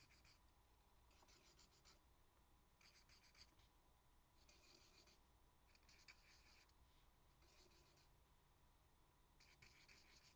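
Faint scratching of a pencil drawing small circles on lined paper: a series of short scratches, about one every second and a half.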